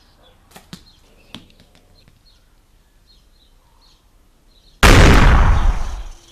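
A few light knocks with faint birdsong, then about five seconds in a sudden, very loud explosion sound effect that dies away over about a second and a half.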